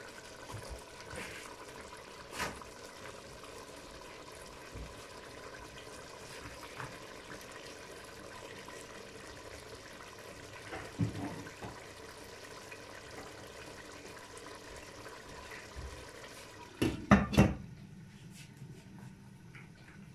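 Chicken curry simmering in an open stainless steel pot, a steady bubbling hiss. Near the end a few sharp knocks as the glass lid is set on the pot, after which the bubbling is muffled.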